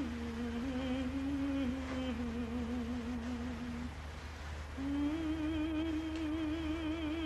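A slow, wordless melody hummed by a voice with a wide vibrato. The held notes step downward, stop about four seconds in, then start again a little higher, over a steady low hum.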